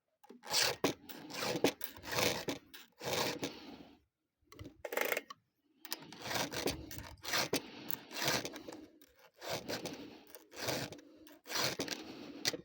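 Repeated scraping, rasping strokes, roughly one a second, with short pauses between them.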